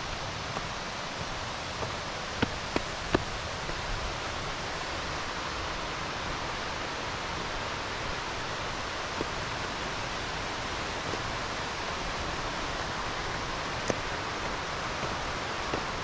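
Steady rush of a large waterfall heard through the forest, even and unchanging, with a few sharp clicks about two to three seconds in and again near the end.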